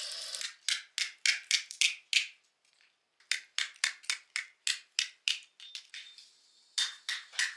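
Percussive background music: sharp wooden-sounding clicks in an even rhythm, about three or four a second, with a short break near the middle. About half a second in, the wet sound of a spoon working sheep-tail fat in a metal basin cuts off.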